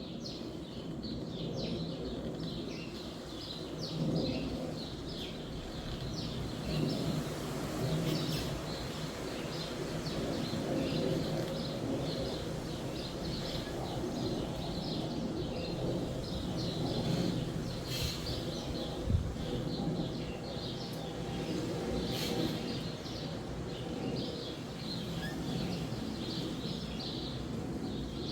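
Sparrows chirping busily and continuously over a steady low rush of wind through trees, with a few sharp clicks.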